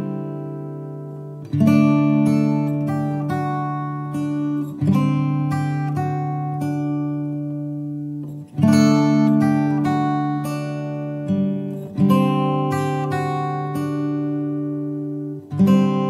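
Background music of strummed acoustic guitar: a chord struck about every three to four seconds and left to ring and fade, with lighter picked notes in between.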